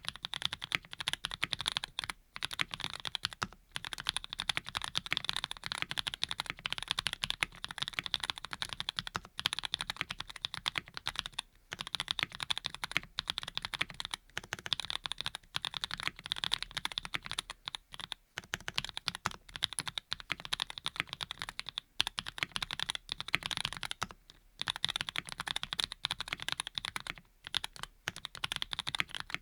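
Continuous fast typing on a Graystudio Think6.5 V2 custom mechanical keyboard with lubed linear switches (Cherry bottom housings with Cream stems and tops), a dense run of keystrokes broken by a few short pauses.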